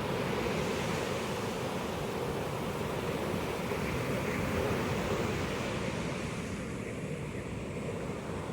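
Ocean surf washing onto a beach, a steady roar of breaking waves that eases slightly near the end, with some wind on the microphone.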